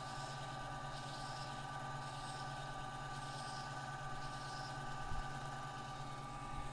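Cue repair lathe running steadily with a motor hum, while 220-grit sandpaper is held against the spinning cue tip's edge, giving soft sanding swishes about once a second. The swishes stop about four and a half seconds in, and there is a faint low bump about five seconds in.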